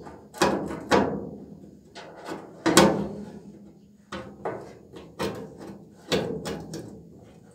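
Sharp metallic knocks and clanks, one or two a second at irregular spacing, each ringing out briefly, as a steel repair panel in a classic Mini's rear wheel arch is worked into place and clamped.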